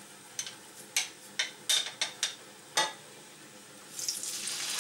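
A run of about eight sharp taps and clicks, then a chopped-beef patty laid in hot oil in a frying pan starts to sizzle about four seconds in.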